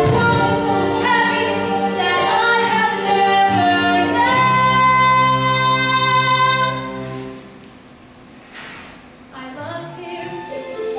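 A solo female voice sings a musical-theatre ballad with accompaniment. About halfway through she holds one long high note, then the music dies away to quiet, and soft accompaniment starts again near the end.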